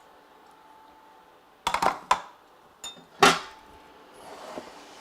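Kitchen dishes and utensils knocking and clinking as they are handled and set down: a quick cluster of sharp knocks, a small ringing clink, then one louder knock about three seconds in.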